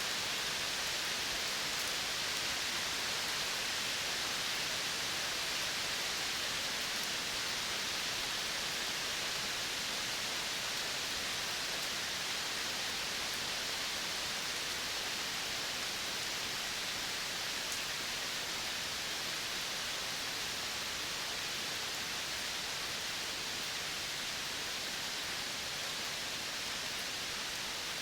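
Steady outdoor nature ambience: an even, unbroken hiss with no distinct bird or animal calls standing out.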